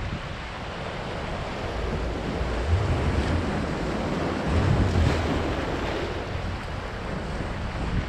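Ocean surf breaking over rocks and washing up the beach, swelling to its loudest a few seconds in and then easing. Wind buffets the microphone with gusty low rumbles.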